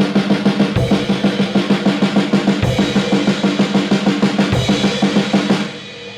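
Drum kit played in a steady practice groove, about seven strokes a second. A heavier cymbal-and-bass-drum accent lands roughly every two seconds. The playing stops abruptly near the end.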